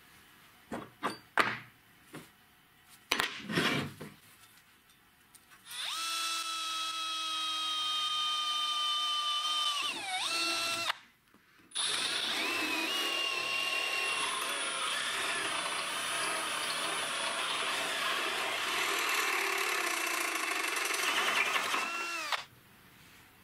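A few short knocks, then a drill with a step bit cutting a hole in a steel disc. The motor's steady whine sags and stops about ten seconds in. It starts again and runs on steadily until near the end.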